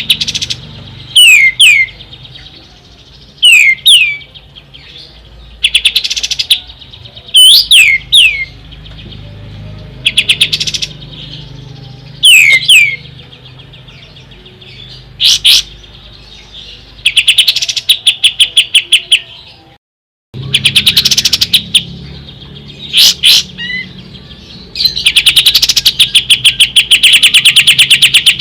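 Kapas tembak songbird calling: loud, sharp whistled notes that sweep steeply in pitch, alternating with fast rattling trills. The longest trill comes near the end.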